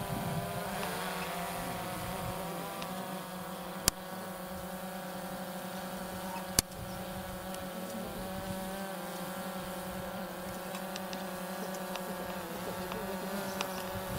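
Quadcopter drone's propellers buzzing steadily in flight, the pitch shifting slightly now and then. Two sharp clicks come about four seconds in and again two and a half seconds later.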